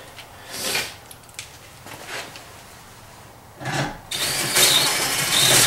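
Cordless drill driving drywall screws through a pellet-stove vent thimble plate into 5/8-inch fire-rated drywall: a short run about half a second in, then a longer, louder run of about a second and a half near the end as a screw is driven home.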